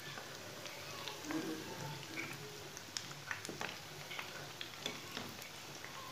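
Egg-and-breadcrumb-coated snacks deep-frying in hot oil in a pan: a steady sizzle with many small scattered crackles and pops, and a metal spoon moving through the oil to turn them.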